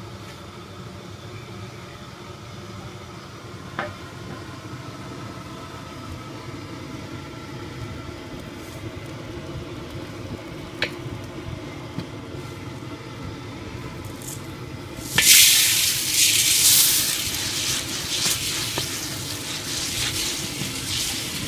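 Propane burner running steadily under a kettle-corn kettle, with a few sharp clicks. About 15 seconds in, popcorn kernels are dumped into the hot oil and set off a loud sizzle that carries on as they are stirred.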